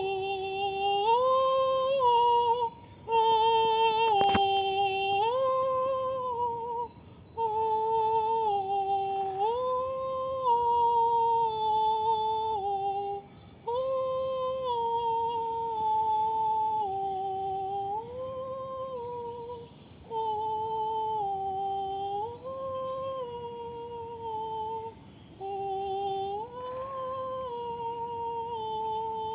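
A woman's wordless humming: long held notes that step up and down between a few pitches, in phrases of a few seconds broken by short pauses for breath.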